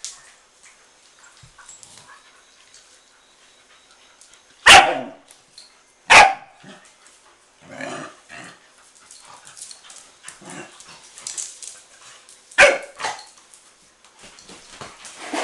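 Young dogs barking while they play-fight: a few sharp barks, loudest about five and six seconds in and a close pair near the end, with quieter scattered sounds of the scuffle in between.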